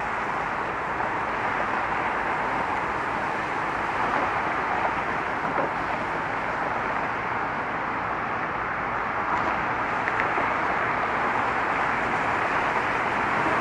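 Steady traffic noise: an even wash of cars and tyres passing on a busy road, with no single vehicle standing out.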